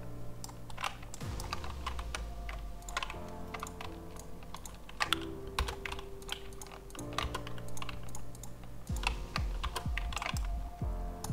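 Computer keyboard keys and mouse buttons clicking in irregular runs, over soft background music with held chords that change every two seconds or so.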